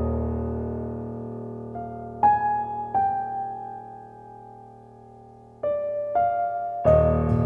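Background music: slow piano or electric-piano notes, each held and left to fade before the next one is struck.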